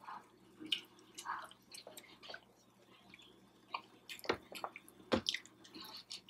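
Mouth sounds of eating a sauce-dipped cheeseburger egg roll: wet chewing and lip smacks, heard as soft scattered clicks that come more often in the second half.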